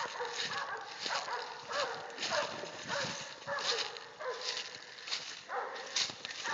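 Cur dogs barking in a steady run, about two barks a second, with dry leaves crunching underfoot.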